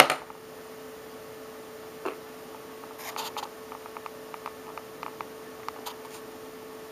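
A faint, steady electrical hum at one pitch, with scattered light clicks and ticks. A small cluster of clicks comes about three seconds in.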